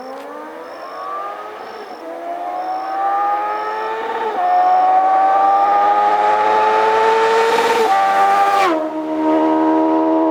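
Honda CBR650F's inline-four engine, through a Jeskap GP3 aftermarket exhaust, accelerating hard through the gears: the pitch climbs in each gear, with upshifts about two, four and eight seconds in. Near the end the pitch falls sharply and holds steady.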